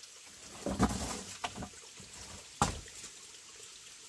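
Wooden planks being shifted and knocked by hand: a dull thud about a second in, then a sharper wooden knock a little past halfway.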